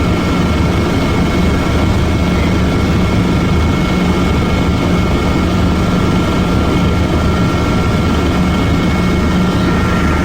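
Helicopter running steadily, heard from inside the cabin: a constant loud drone with a low hum and two steady high-pitched tones over it.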